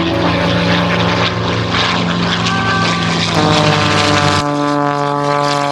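Propeller airplane's piston engine droning as it flies past, its note changing abruptly about four seconds in.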